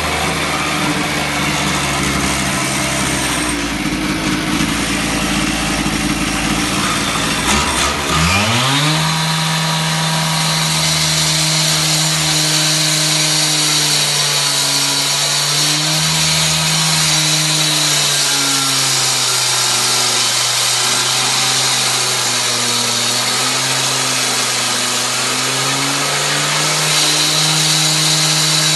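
K12 two-stroke concrete cut-off saw running unevenly at lower speed, then revving sharply up about eight seconds in and holding at high speed with a high whine and small wavers in pitch.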